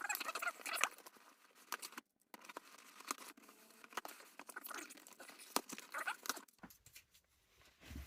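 Cardboard shipping box being torn open by hand: tearing and crinkling in irregular bursts with a few sharp clicks, and a brief pause about two seconds in.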